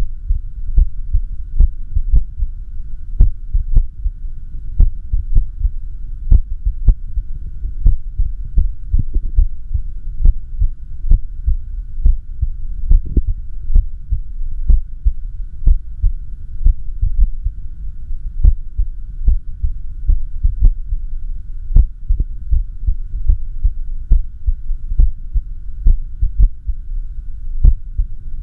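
A person's heartbeat recorded during an echocardiogram: sharp low beats at an uneven rhythm over a steady low hum. The irregular spacing is the sign of the arrhythmia the heart is in.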